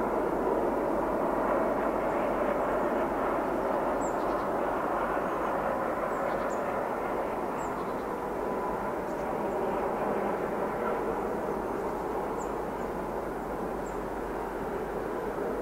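Steady distant drone of a Class 233 'Ludmilla' diesel locomotive and its Kolomna 12D49M engine, approaching but still out of sight, with a few faint high chirps over it.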